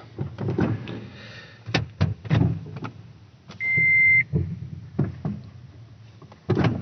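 A few clicks and knocks in a Toyota Prius cabin, then a single electronic beep of about half a second from the car, midway through, as it is started on a replacement 12 V battery.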